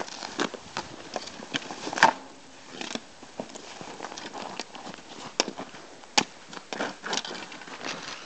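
Scattered clicks, scrapes and crunches of a hockey stick and feet on packed snow, with a few sharper knocks about two seconds in and again near six seconds.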